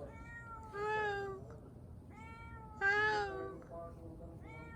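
A cat meowing repeatedly: about five meows, each under a second long and each rising then falling in pitch.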